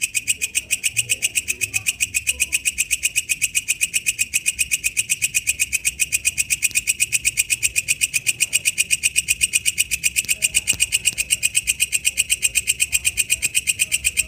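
Walang kecek bush cricket calling: a fast, even train of sharp chirps, about seven a second, kept up without a break.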